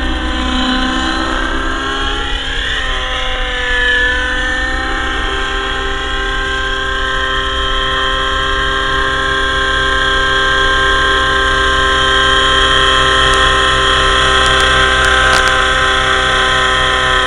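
Avant Aurora 90 radio-controlled helicopter in flight, its glow-fuel engine and rotors making a steady high whine of many stacked tones. The pitch dips and rises briefly about two to four seconds in, then holds steady and grows a little louder in the second half.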